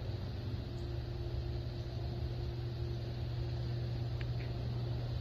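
A steady low mechanical hum with a faint higher steady tone above it, and two faint ticks about four seconds in; no gunshot.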